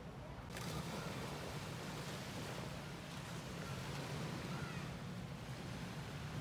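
Steady rush of wind on the microphone mixed with surf along a sandy beach, getting louder about half a second in.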